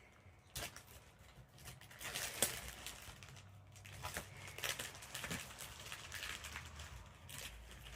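Irregular rustling, crinkling and small clicks as a shipping parcel's packaging is handled, busiest about two seconds in and again around four to five seconds in.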